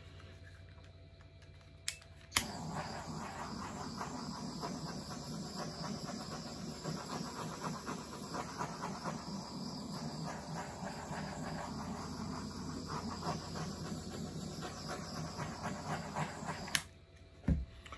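Small handheld electric blower switched on about two seconds in, running steadily while it pushes wet acrylic paint across the canvas, then switched off abruptly near the end.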